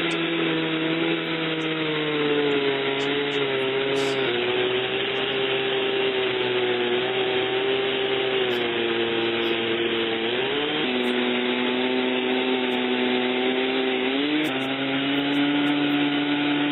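Chainsaw running under load in an Alaskan chainsaw mill, cutting lengthwise through a cedar log; its engine note holds steady and shifts down and back up a few times as the load changes.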